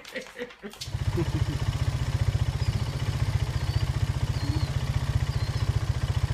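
A motor running with a steady, fast-pulsing low rumble that starts abruptly about a second in.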